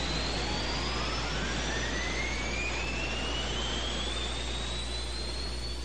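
Recorded rocket launch played back from an RCA Victor stereo tape cartridge: a steady rushing noise with two thin tones that climb slowly in pitch.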